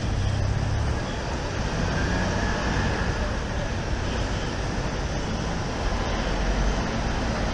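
Steady road traffic noise at a busy junction, with the low engine rumble of heavy trucks turning across it.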